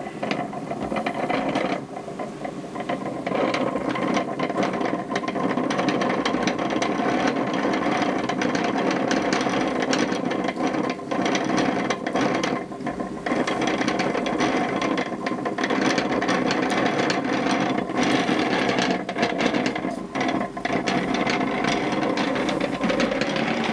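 Wooden yarn reel (haspel) being turned steadily, its wooden toothed wheel giving a continuous rapid clicking like a ratchet.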